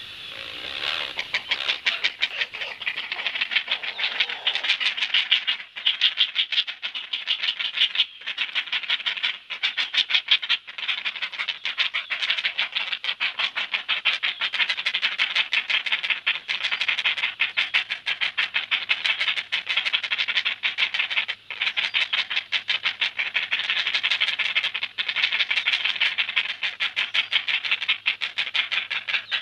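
Great blue heron chicks begging at feeding time: a loud, continuous, rapid clattering chatter of clicks, with only brief breaks.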